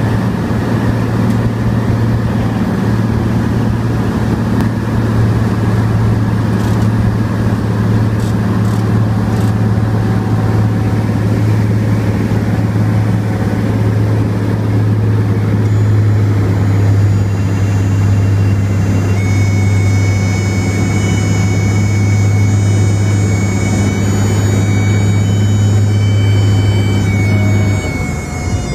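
Floatplane engine and propeller droning steadily through the approach. About two-thirds of the way in, a steady high-pitched tone comes in over it. Near the end the engine drone drops away as the power comes off.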